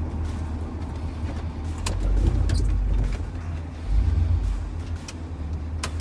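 Chevrolet K20 plow truck's engine running under load while pushing snow, its note swelling about two seconds in and again about four seconds in, with a few sharp clicks over it.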